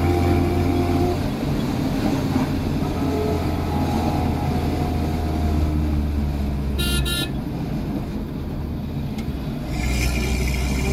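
Maruti Gypsy's engine running steadily on the move, heard from inside the cabin, with two short horn toots about seven seconds in. The engine eases off after the horn and picks up again near the end.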